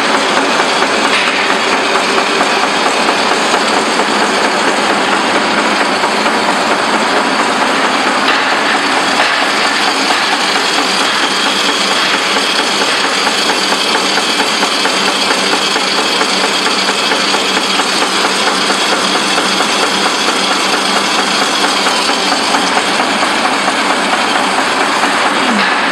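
Blank continuous-form paper machine running, a loud, steady, dense mechanical clatter without let-up.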